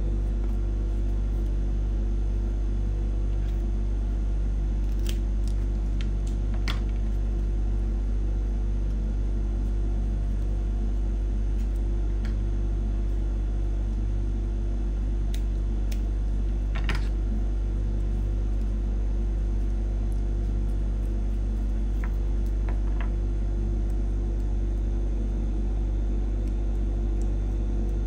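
Steady low electrical-sounding hum, with a few faint, scattered clicks and rustles from gypsophila stems being handled and wrapped in floral tape.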